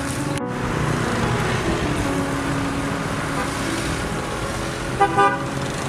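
Road traffic passing, with a car horn giving two short toots about five seconds in.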